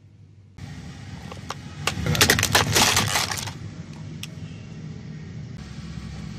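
Brittle plastic objects crushed under a car tyre: a dense run of sharp cracks and crunches starting about two seconds in and lasting over a second, over the low rumble of the car.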